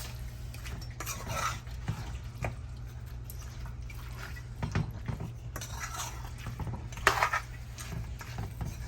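A spoon stirring and scraping in a pot of chicken curry, with scattered clinks and scrapes, the loudest about seven seconds in, over a steady low hum.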